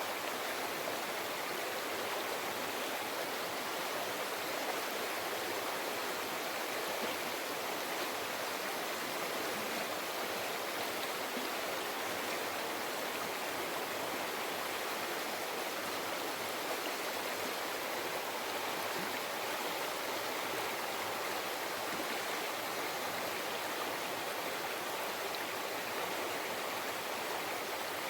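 River water flowing and babbling over rocks in a steady rush of water noise.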